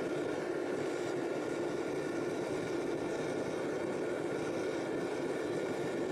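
Small metal-melting furnace running: a steady, even rush with a few faint steady tones above it, while a crucible of aluminium cartridge cases heats toward melting.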